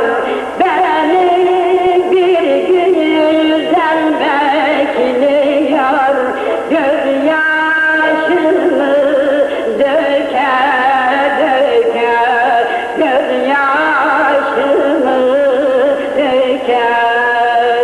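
Turkish folk song in the Harput style: a man singing an ornamented, wavering melody with instrumental accompaniment.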